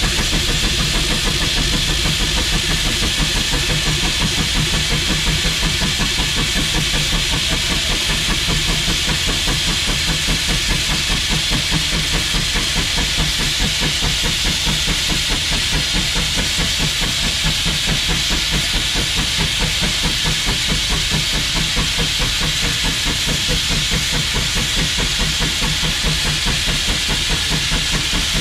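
McLaren steam road locomotive working hard under load, driving a dynamometer through a long flat belt: rapid, even exhaust beats with a continuous hiss of steam.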